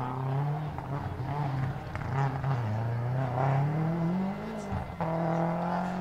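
Toyota Celica GT-Four ST165 Group A rally car's turbocharged four-cylinder engine pulling through a tight bend. Its note dips, climbs steadily for about two seconds, breaks off briefly about three-quarters through, then holds steady.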